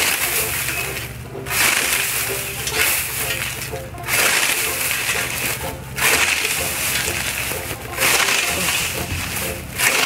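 Scythe blade swishing through standing wheat, the dry stalks crunching as each stroke cuts them, a stroke about every one and a half to two seconds. The wheat is over-dry and past its best harvest time.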